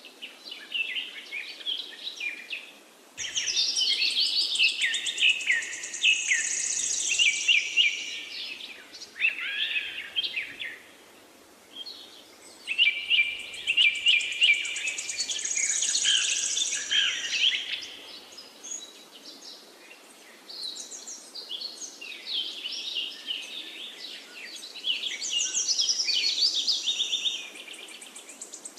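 Birds chirping and singing in quick, high, trilling phrases, with short lulls between the phrases.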